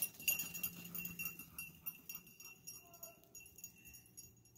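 A small bell on a hunting beagle's collar jingles in quick, irregular shakes as the dog moves off. The jingling grows fainter and stops about four seconds in.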